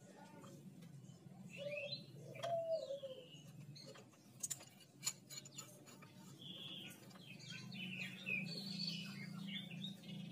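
Small birds chirping in the background in short, sweeping calls, with a couple of sharp metallic clicks from hand tools on the magneto rotor puller about halfway through.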